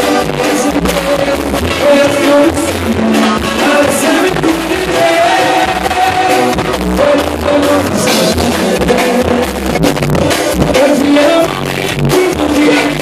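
Live duranguense band playing loud, with a lead vocal over keyboards and a steady drum beat.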